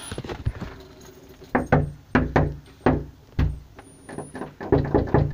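Knocking on a door: a run of dull thuds, roughly two a second, starting about one and a half seconds in.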